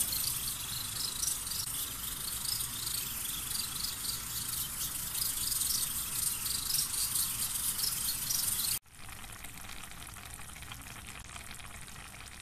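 Tomato-and-pepper sauce with merguez simmering and sizzling in an earthenware pot, with small crackling pops, as eggs poach in it. About nine seconds in the hiss drops suddenly to a quieter, steady level.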